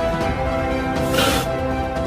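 Background music with held notes and a hissy accent about once every two seconds.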